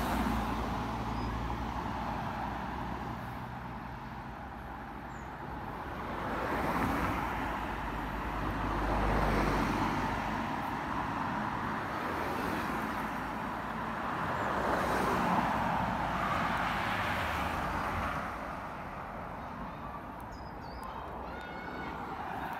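Road traffic: several cars passing close by one after another. Each pass brings engine rumble and tyre noise that swell and fade.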